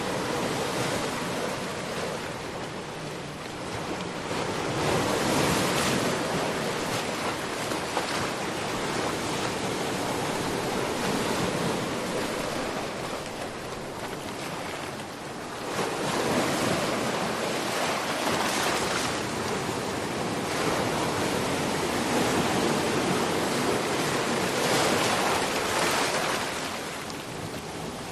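Ocean surf: waves breaking and washing in, rising and falling in slow surges every several seconds.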